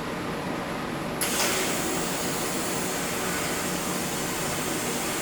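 Steady hiss of a DC TIG welding arc on 10 mm stainless steel at about 160 amps. It grows louder and brighter about a second in.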